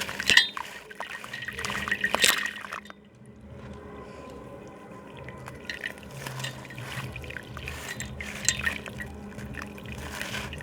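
Gritty slab crumbling into water: chunks breaking off and dropping in with wet splashes and crackles, loudest about a third of a second and two seconds in, dying down briefly around three seconds, then picking up again in scattered clusters.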